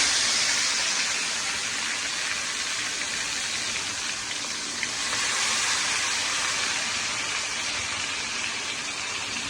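Marinated chicken pieces deep-frying in hot oil, sizzling with a loud, steady hiss that is strongest at the start and eases slightly.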